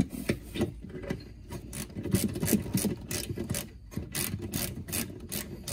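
Socket ratchet wrench clicking in a quick run of strokes, about four clicks a second, as it turns a 10 mm solenoid mounting bolt on a golf cart frame.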